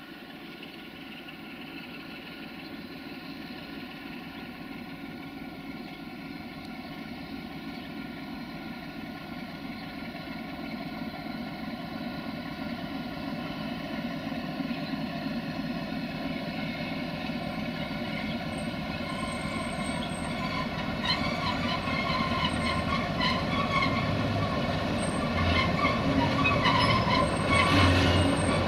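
Two 060-DA (LDE2100) diesel-electric locomotives with Sulzer engines running as they slowly approach hauling a container train, growing steadily louder. From about twenty seconds in, metallic clicking and squealing from the wheels on the rails joins in.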